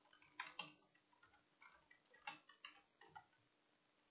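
Faint, irregular clicks of keys being typed on a computer keyboard, a dozen or so scattered strokes, over a faint steady hum.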